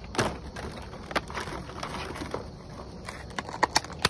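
Backyard chickens feeding on scattered strawberries and grain: a scatter of short, irregular pecking taps and clicks, a few sharper ones near the end.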